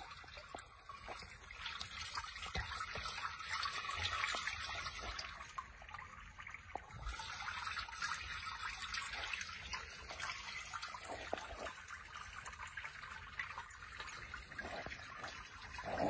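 Water trickling and dripping beneath a street drain grating, running away underground in a steady watery hiss that eases briefly about five seconds in.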